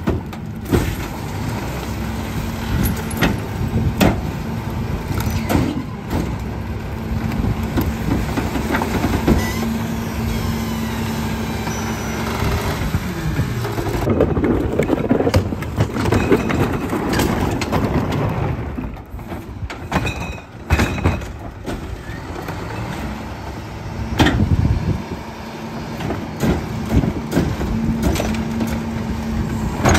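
McNeilus rear-loader garbage truck running its hydraulic packer: the engine holds a steady raised hum as the blade sweeps and compacts recyclables in the hopper, with rattles and knocks from the load. Near the end a wheeled recycling cart is tipped into the hopper by hand.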